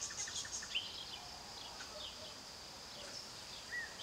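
Faint outdoor ambience: scattered short bird chirps over a steady high insect hum.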